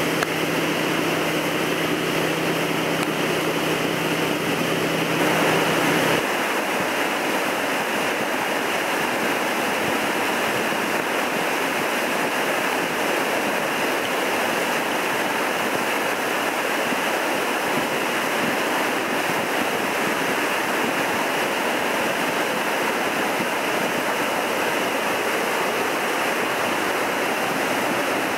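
Wildcat River in flood, churning through Jackson Falls and under a stone bridge: a steady rush of whitewater. A low steady hum runs under it for the first six seconds, then stops.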